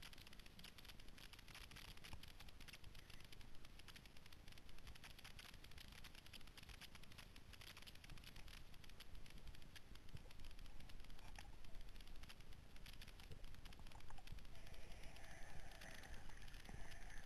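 Underwater reef crackle: a dense, steady patter of tiny clicks, typical of snapping shrimp on a coral reef, picked up by an underwater camera. A faint rough tone joins in about fifteen seconds in.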